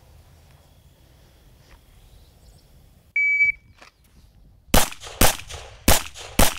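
A shot timer's start beep, one steady high tone, then about a second and a half later four shots from a Smith & Wesson M&P M2.0 Core pistol, about half a second apart: a controlled pair on each of two targets, drawn from the holster.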